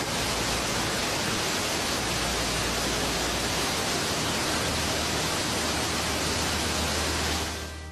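Steady rush of a fast-flowing river, fading out near the end.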